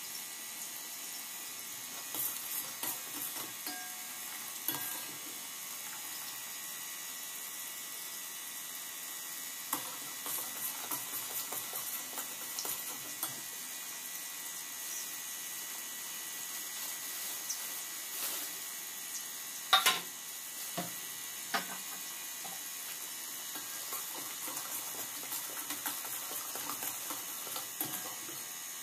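Liquid bubbling in a stainless steel pot on a gas stove, with a steel ladle stirring and clinking against the pot now and then; the sharpest clink comes a little after two-thirds of the way through.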